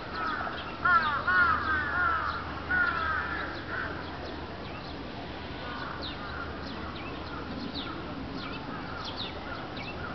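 Crows cawing in a quick run of arched calls over the first four seconds, then fainter calls around six seconds in. Short high chirps run throughout.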